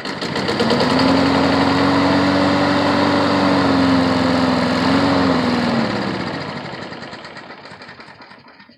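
Craftsman lawn mower's small engine running steadily at a constant speed after a new flywheel key was fitted, then cutting out about five and a half seconds in and winding down, slowing and fading to a stop.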